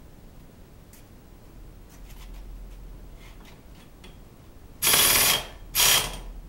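Two short, loud bursts from a compressed-air tool on an air hose, a hissing whir, the first about half a second long and the second shorter, about a second later. A few faint metallic clicks come before them.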